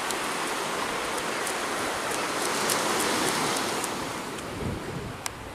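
Surf washing onto the beach: a steady rushing noise that swells to its loudest about three seconds in and then eases off, with a few faint ticks.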